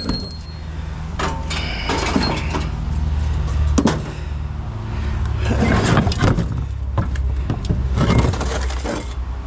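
Scrap metal clanking and clattering as pieces are handled and tossed in, in several bursts of knocks with brief metallic ringing. A vehicle engine idles underneath.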